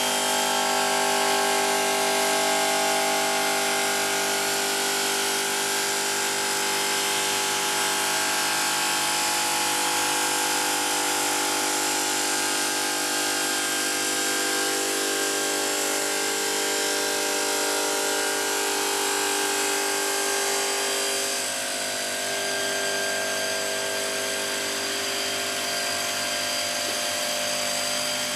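Bridge saw's circular blade cutting a stone slab: a steady motor whine with a continuous grinding hiss. The tone shifts slightly about twenty seconds in.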